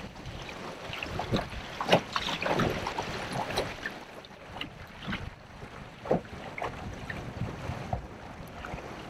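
Aluminium jon boat running at full speed into about a one-foot chop: the hull slaps and water splashes at irregular intervals over a steady rush of water and wind.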